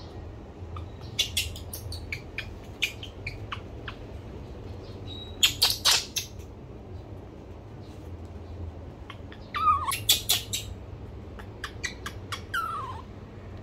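Baby macaque crying: scattered short, sharp squeaks, then twice near the end a high squealing call that falls in pitch.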